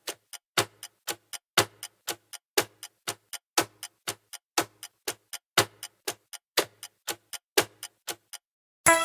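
Countdown-timer ticking sound effect, about four clock-like ticks a second with a louder tick each second, stopping shortly before background music comes back in near the end.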